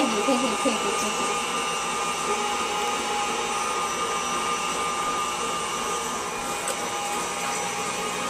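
Electric tilt-head stand mixer running at a steady speed, mixing brownie batter in its stainless steel bowl: an even motor hum with a steady whine.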